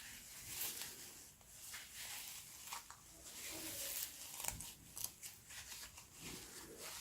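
Clear slime being worked by hand with bits of black paper in it: a run of irregular small sticky crackles, clicks and squelches.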